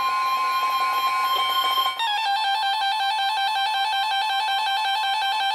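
NOAA Weather Radio's steady weather alert tone, the signal that a warning is coming, sounding through weather radios mixed with other steady alarm beeps. About two seconds in it cuts off and a radio's own alarm takes over: a loud two-pitch electronic warble switching rapidly back and forth.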